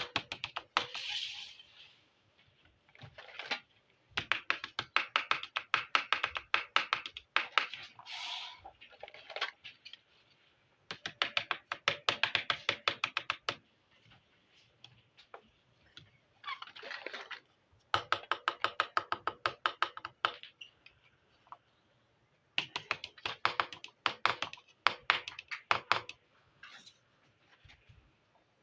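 Small plastic miniature kitchen toys being tapped, in runs of quick sharp clicks of about ten a second lasting two or three seconds each, with brief rustling between runs.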